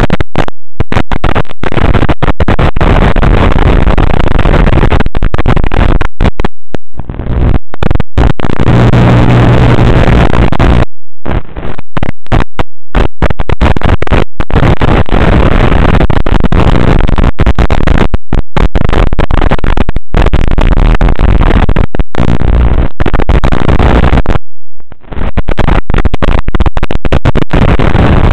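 Loud, harsh static and buzz from an analog FPV video receiver's audio channel, cutting out in many short gaps. It is the noise of a weak, breaking-up analog video link.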